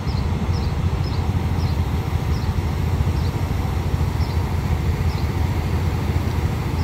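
Diesel locomotive idling as a steady low rumble, with a high chirp repeating about twice a second over it.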